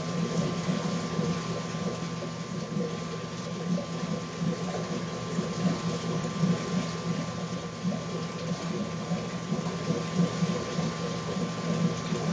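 Steady running, gurgling water from a reef aquarium's circulation and filtration, over a constant low pump hum with a faint higher tone.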